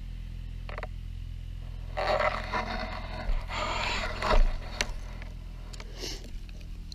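A scraping, rustling sound starting about two seconds in and lasting about two and a half seconds, with a sharper knock near its end. A steady low hum runs underneath.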